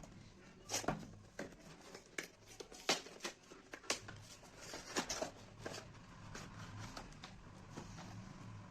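A package being opened and unwrapped by hand: a string of faint crinkles, clicks and tearing sounds at uneven intervals.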